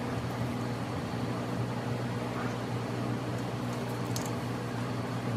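Steady hum of a running machine, a constant low pitch under an even hiss.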